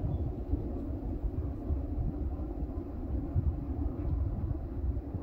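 Low, uneven rumble of wind buffeting the microphone, gusting up and down.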